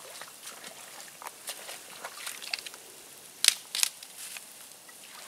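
Dead sticks being snapped and handled: a string of small crackles and cracks, with two loud sharp snaps about three and a half seconds in.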